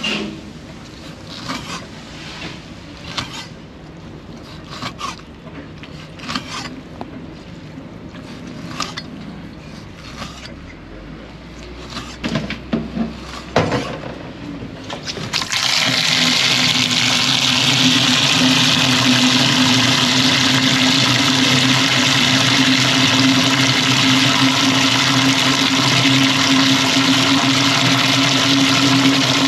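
Scattered knocks and clatter of handling, then about halfway in water suddenly starts gushing steadily from a pipe, with a steady hum under the rush.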